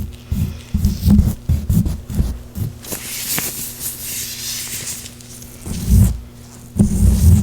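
Oiled gloved hands rubbing and squishing close to the microphone: a run of short, low muffled thumps, then a slick, hissy rubbing about three seconds in that lasts a couple of seconds, then more thumps near the end.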